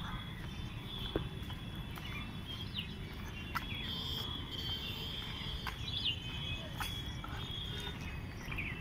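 Birds chirping in short calls every second or two over a steady high insect buzz and a continuous low rumble, with a few faint clicks.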